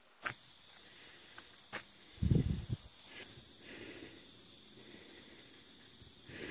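Insects trilling steadily at a high pitch, with a few light ticks and a brief low rumble of handling noise about two seconds in.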